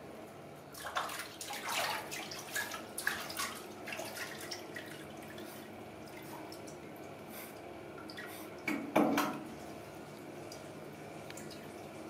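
Water splashing and dripping in a bathroom sink as a baby monkey is washed in it by hand, in quick irregular splashes, with one louder rush of water about nine seconds in, then only faint dripping.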